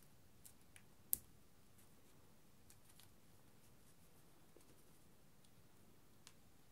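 Near silence, broken by a few faint crackles of a paper dollar bill being creased by hand, the sharpest about a second in.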